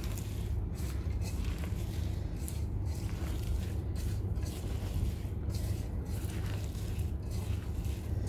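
A hand mixing and squeezing chopped banana flower with grated coconut, onion and spices in a stainless steel bowl: soft rustling in irregular strokes, over a steady low hum.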